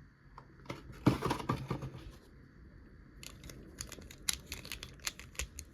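Hands handling small hard plastic toy parts and packaging: a burst of rustling and clicking about a second in, then a run of sharp, irregular plastic clicks.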